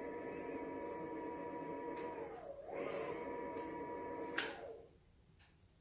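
Xiaomi M365 electric scooter's hub motor and controller running with a steady high-pitched whine, working normally with its new main board. The pitch dips and comes back up about halfway through. After a click, it winds down and stops near the end.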